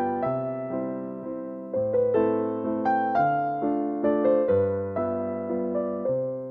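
Background music: a soft electric piano playing slow sustained chords, each struck and fading away.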